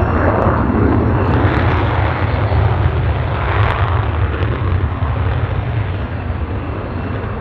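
Polish Air Force F-16 fighter jets' afterburning Pratt & Whitney F100 turbofans on the takeoff roll at full power: a loud, continuous jet rumble that swells about half a second in and again about three and a half seconds in.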